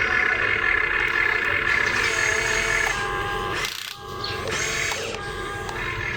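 Small electric gear motors of RC construction toys whining, with a brief drop nearly four seconds in before the whine resumes at a different pitch.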